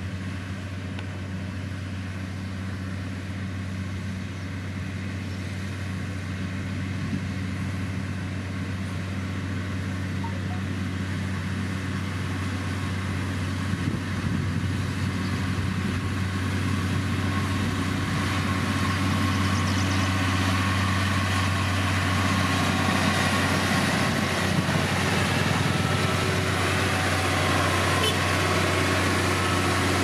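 Diesel engine of heavy road-construction machinery running steadily with a low, even hum, growing gradually louder as its higher-pitched mechanical noise builds.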